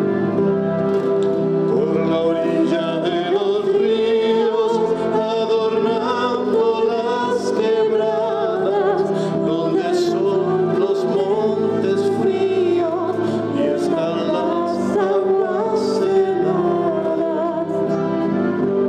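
A woman singing into a microphone, accompanied by a flute and other instruments.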